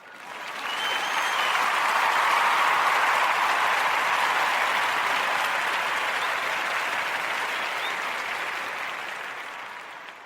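Crowd applauding, swelling in over the first couple of seconds and then slowly dying away.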